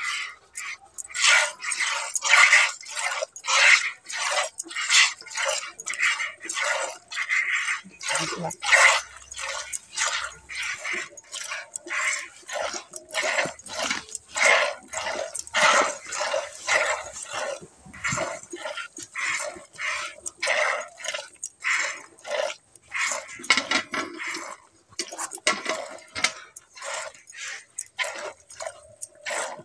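Milk squirting into a plastic bucket as a cow is milked by hand, in short rhythmic spurts, about two to three a second.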